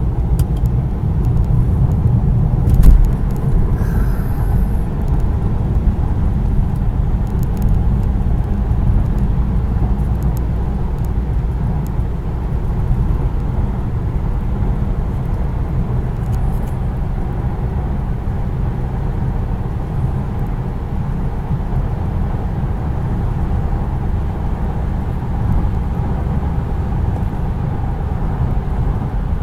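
Steady low rumble of a car's engine and road noise inside the cabin while driving up a hill, with a single thump about three seconds in.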